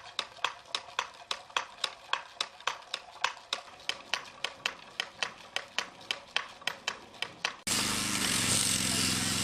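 Hand sheep shears snipping fleece in a steady rhythm of sharp clicks, about four a second. About three-quarters of the way through, it switches suddenly to a steady machine hum with noise.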